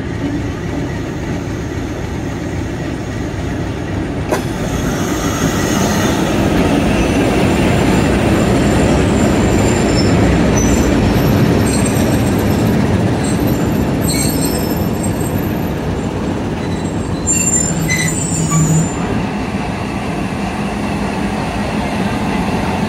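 Passenger train rolling past on the adjacent track: a rumble of wheels and coaches that swells to its loudest midway, with intermittent high-pitched wheel squeal.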